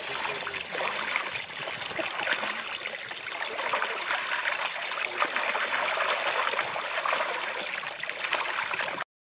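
Water gushing steadily from an outlet pipe and splashing over a fish held in hands beneath it, running into shallow water. The sound cuts off abruptly near the end.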